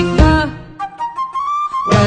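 Broadway show-tune instrumental passage: the full band plays, thins out about half a second in to a lone instrument holding a high, slowly rising note, and the full band comes back in at the end.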